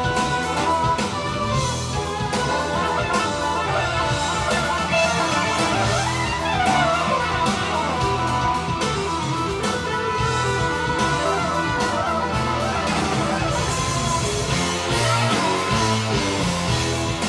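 Guitar-led music with a drum kit, played back through Dynaudio Excite X14 loudspeakers and picked up by a camera microphone.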